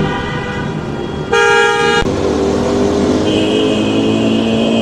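A vehicle horn blasts once for under a second, about a second and a half in, over steady engine and road-traffic noise. A thin, high, steady tone comes in about two-thirds of the way through.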